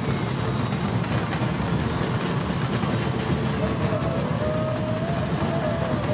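Dense murmur of a crowd talking over a steady low rumble. About four seconds in, a single wavering tone rises above it and is held.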